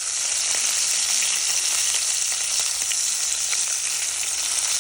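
Food sizzling in a cast-iron Dutch oven: a steady, dense sizzle with scattered small crackles.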